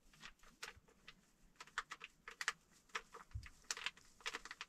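Plastic coffee packet crinkling and crackling in irregular quick bursts as it is handled, opened and emptied into a jar, with a soft knock about three and a half seconds in.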